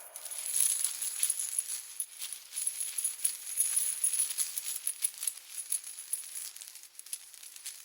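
Metal chain rattling in a dense run of quick jangling clicks, with a high, steady metallic ring over it; it starts abruptly, is loudest for the first few seconds and thins out near the end. A processed horror sound effect.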